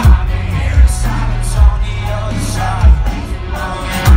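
Live pop-punk band playing through a festival PA, picked up loud by a phone in the crowd: heavy bass and a loud drum hit every second or so, with singing over it.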